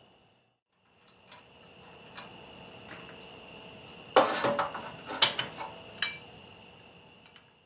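Scattered metallic clinks and clanks of tools and parts as a lawn tractor's steering is taken apart, with the loudest cluster about four seconds in, over a steady high trill of crickets.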